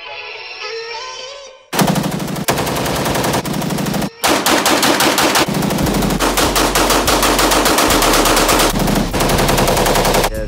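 Rapid automatic gunfire that comes in sharply about two seconds in, after a few seconds of music, and keeps going with a brief break around four seconds in. A steady deep bass tone sits under it in the second half.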